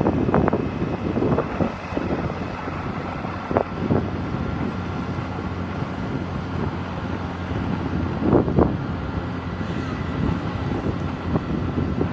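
Small motorcycle engine running at a steady cruising speed while riding, with wind buffeting the microphone in a few gusts.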